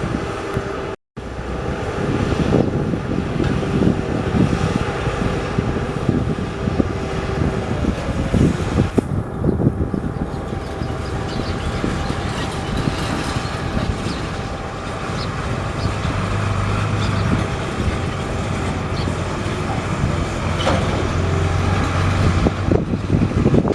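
Heavy vehicle engine running steadily, with scattered knocks and clatter, cutting out abruptly for a split second about a second in.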